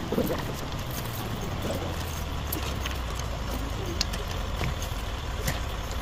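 A steady low engine hum, like a vehicle idling, under light metallic clicks and clinks from chain crampons being stretched over hiking boots.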